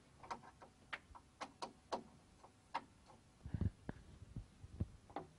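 Light, irregular clicks and taps of a screwdriver on the screws and plastic back cover of an LCD TV as the cover screws are taken out. A duller knock comes about three and a half seconds in.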